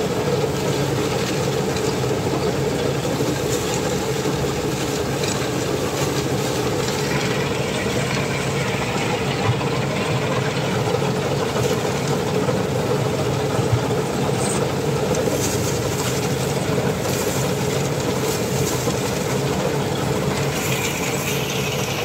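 Mahindra Yuvo tractor's diesel engine running steadily under load as it hauls a heavily loaded trailer.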